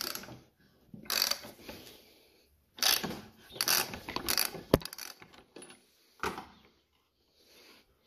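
A 21 mm metal spark plug wrench turning a lawnmower's spark plug loose: several short bursts of metal scraping and clicking, with one sharp click about halfway through.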